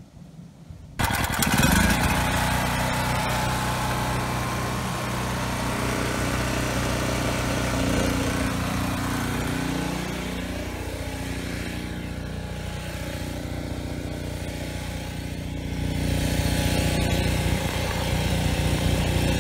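Predator portable generator's single-cylinder engine running steadily under heavy electrical load from space heaters. It comes in suddenly and loud about a second in, and its pitch wavers briefly around the middle.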